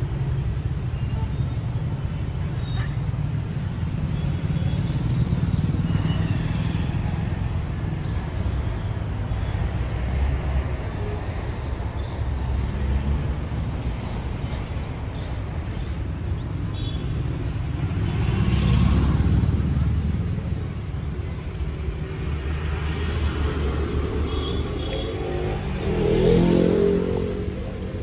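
Street traffic noise: a steady low rumble of passing vehicles, swelling as a louder vehicle goes by past the middle, with a brief pitched sound near the end.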